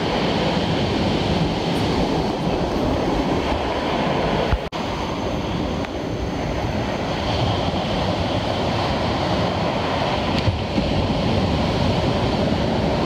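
Steady roar of ocean surf on the beach, with a brief dropout a little under five seconds in.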